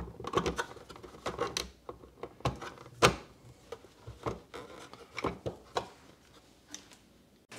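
Hands handling a plastic aquarium light fixture and its wiring: irregular clicks, taps and rubbing as the wires and parts are pushed back into the housing, with a screwdriver worked against the fixture near the end. The sound stops abruptly just before the end.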